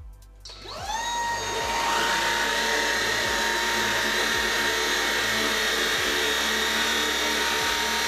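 Shark ICZ160UK cordless upright vacuum switched on in low power mode: its motor starts about half a second in with a rising whine, then settles into a steady high whine as it is pushed over carpet.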